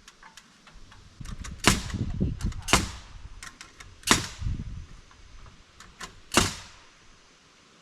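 Hammer striking nails into wooden boards: four loud, sharp blows a second or two apart, with lighter taps between them.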